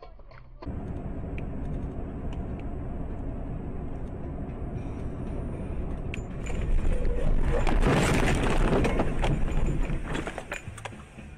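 Truck engine and road noise heard from inside the cab while driving. From about six and a half seconds in, a louder rough clattering and rumbling lasts about four seconds, then fades.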